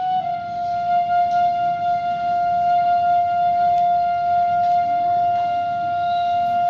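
Lalove, a long bamboo flute, holding one long steady note, with a slight drop in pitch just after the start.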